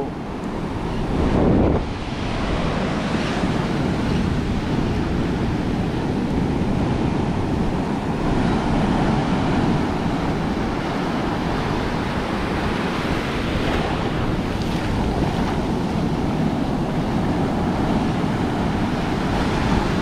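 Ocean surf breaking and washing up over the sand in a steady rush, with wind buffeting the microphone. A louder surge comes about a second and a half in.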